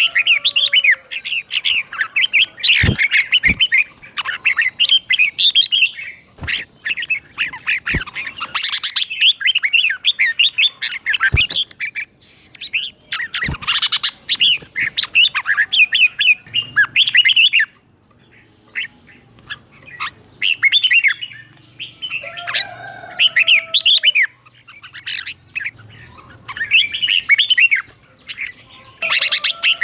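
Red-whiskered bulbul singing in bursts of quick, warbled phrases with short pauses between them. A few sharp clicks come through in the first half.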